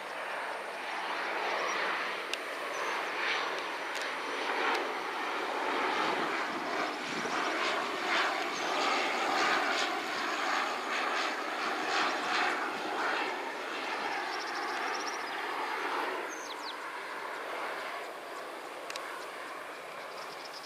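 Bombardier Dash 8 Q400 turboprop on approach, its engines and propellers droning as it passes low overhead. The sound grows to its loudest about halfway through and fades over the last few seconds.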